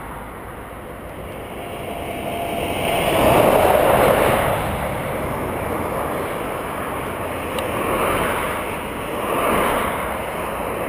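Traffic passing on a highway, each vehicle's tyre and engine noise swelling and fading away, the loudest pass about three to four seconds in.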